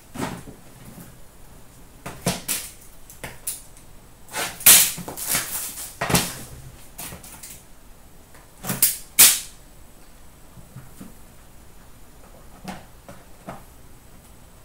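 Cardboard hockey-card hobby box being handled and opened by hand: a string of sharp rustles, scrapes and taps, the loudest in the middle, then a quieter stretch near the end.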